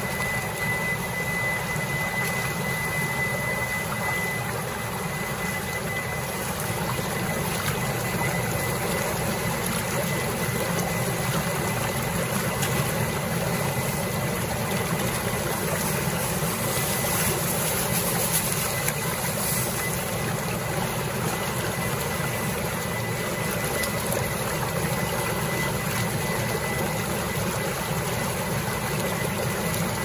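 Meat washing machine running: water churning and splashing hard in its stainless-steel tank over the steady hum of the machine's pump. A faint high whine runs along with it, clearest in the first few seconds.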